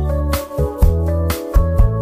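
Background music with a steady beat, about two strikes a second.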